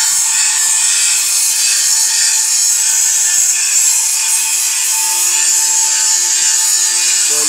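Steady, high-pitched hiss of a power tool grinding metal, with a faint steady whine under it.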